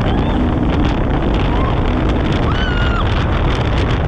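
Polaris RZR 1000 side-by-side driving along a dirt offroad track, its engine running steadily under way, heard from inside the open cab with heavy wind noise on the microphone.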